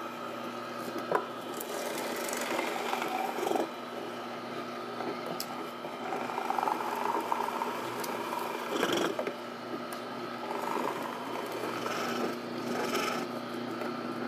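Tribest Greenstar Elite twin-gear slow masticating juicer running, a steady low motor hum under irregular crunching and grinding as its gears crush cucumber spears. The sound stops abruptly at the very end.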